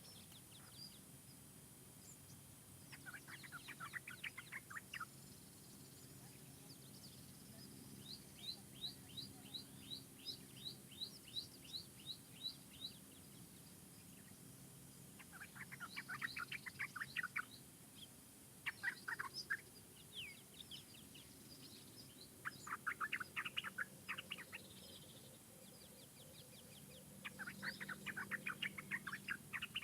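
Birds singing in forest ambience: repeated rapid trills of quick, evenly spaced chirps, each lasting about two seconds and recurring every few seconds, some pitched higher than others. A faint steady low hum lies underneath.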